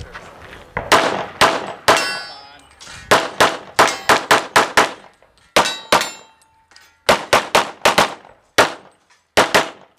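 About twenty gunshots fired rapidly in quick pairs and short strings, as in a practical-shooting course of fire, starting about a second in. Some shots are followed by a brief metallic ring.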